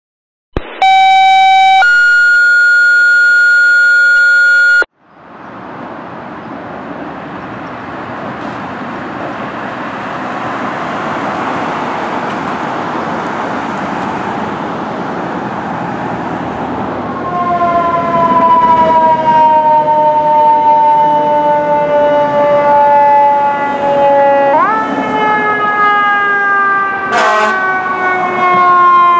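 Two steady electronic tones at the start, a lower one briefly and then a higher one for about three seconds, followed by a steadily building rush of street noise. From about halfway in, a fire apparatus electronic siren wails in slow falling sweeps with one sharp rise, and a brief sharp blast cuts in near the end.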